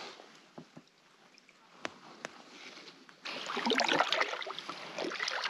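Packraft being paddled on a calm lake: a few light knocks in the first seconds, then from about three seconds in, the sound of the paddle blade moving water and dripping.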